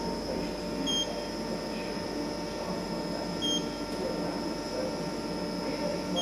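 Short high electronic beeps from a Mitutoyo Euro-Apex C544 CMM, each marking a touch point registered as the Renishaw touch-trigger probe touches the calibration sphere. The beeps come about every two and a half seconds over a steady machine hum.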